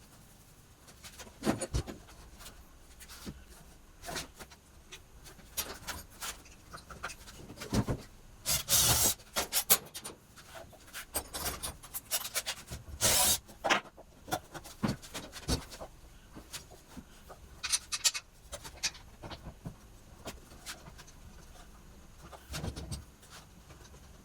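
Hand work on parts: irregular clicks and knocks, with two brief bursts of scraping or rubbing.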